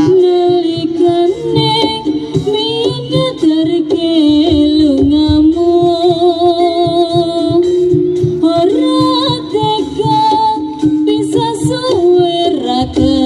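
Live jaranan gamelan music: a sustained, wavering high melody line over steady drum strokes.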